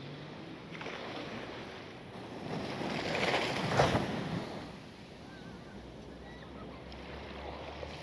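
Ocean waves washing onto the beach: a steady wash of surf, with one wave breaking and rushing up loudest about three to four seconds in before it settles back.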